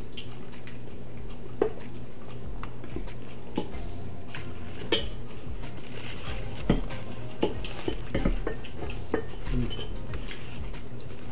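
Metal forks clinking and scraping on plates: scattered separate clinks, roughly one every second or so, over a steady low hum.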